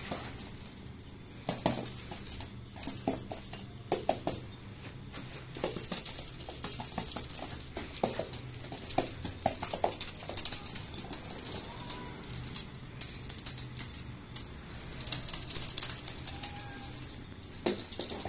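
Steady high jingling of small bells, with scattered light taps in the first half and a few faint, short kitten mews later on.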